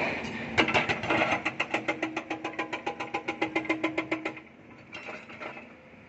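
Hydraulic breaker on a Volvo excavator hammering rock: a fast, even run of ringing metal blows, about eight a second, for almost four seconds. It stops suddenly, with a brief second burst near the end.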